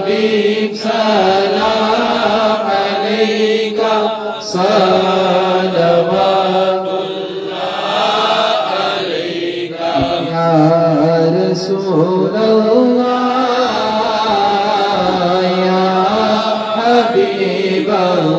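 Unaccompanied Islamic devotional singing (a naat/salam): a man's lead voice through a microphone and PA, singing long wavering melodic phrases with short breaks between them, with the standing men joining in.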